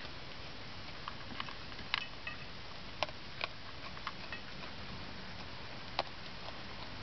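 Raccoon eating dry dog kibble from a stainless steel bowl: scattered sharp clicks and crunches of chewing and of kibble and claws against the metal bowl, over a steady hiss.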